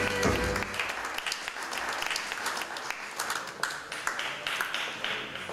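Audience applauding, many hands clapping steadily and slowly dying away; a music track cuts off in the first second.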